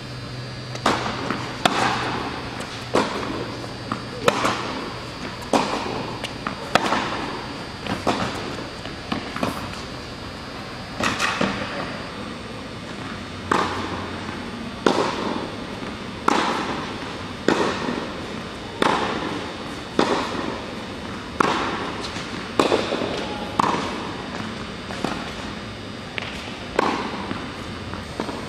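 Tennis ball being struck by rackets and bouncing on a hard court during a rally, sharp pops about once a second, each echoing in a large indoor hall.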